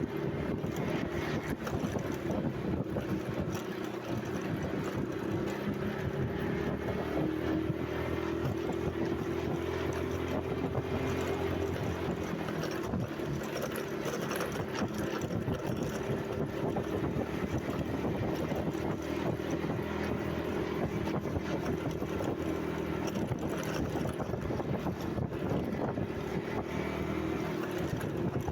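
A steady engine drone with a constant pitch, mixed with wind noise on the microphone.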